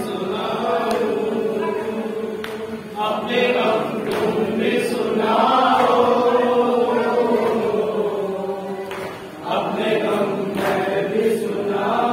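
Nouha being chanted by men's voices, a slow, mournful melodic refrain sung in long held lines, with a brief break between phrases about nine seconds in.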